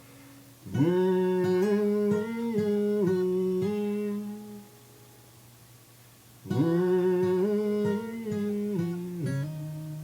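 Acoustic guitar playing the song's riff under a wordless hummed melody, in two phrases with notes sliding up into pitch.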